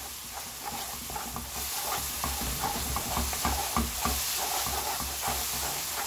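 Gochujang seasoning paste with garlic and oil sizzling in a nonstick frying pan over raised heat, stir-fried with a spatula that scrapes it round in short strokes. The sizzle gets louder about a second and a half in.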